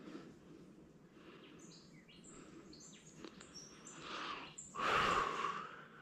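Bird chirping in a run of short high notes about a second and a half in. It is followed near the end by a louder rushing noise lasting about a second.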